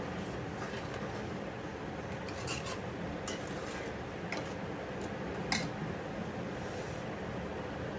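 A metal spoon or spatula scrapes and clinks against a pan while a thick ginger-and-sugar mixture for aale pak is stirred and roasted, over a steady hiss. There are a few sharp clinks, the loudest a little past halfway.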